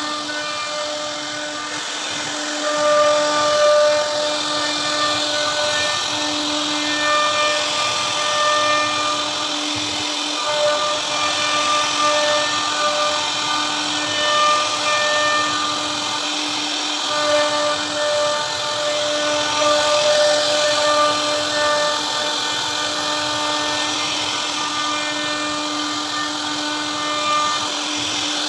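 CNC router spindle running at speed as its bit carves a relief pattern into a wooden door panel. It gives a steady whine, with higher tones that cut in and out every second or two over the hiss of the cut.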